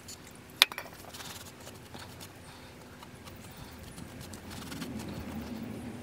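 Small handling noises from a brake pad being cleaned: one sharp metallic click about half a second in, then faint ticks and light rustling.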